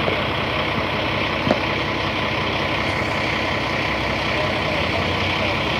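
Peterbilt roll-off truck's diesel engine running steadily, with one short click about a second and a half in.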